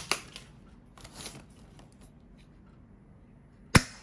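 A spring-powered airsoft bolt-action sniper rifle fires once near the end, a single sharp crack as the BB passes through the chronograph for a velocity test of about 430 fps. A click at the start and brief handling rustle about a second in come before it.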